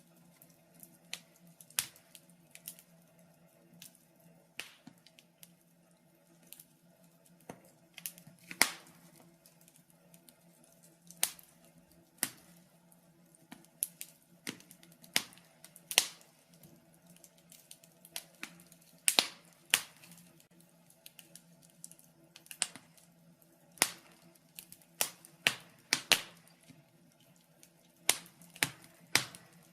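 Wood fire crackling in a fireplace: irregular sharp pops and snaps, roughly one a second and sometimes in quick clusters, over a faint steady low hum.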